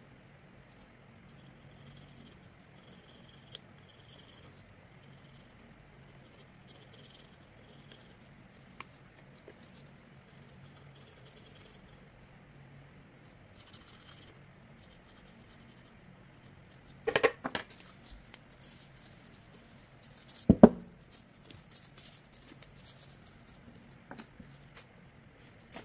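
Small objects handled and set down on a work table: faint handling noise, then a quick cluster of sharp clicks and knocks about two-thirds of the way through, and a few seconds later one louder knock followed by scattered light clicks.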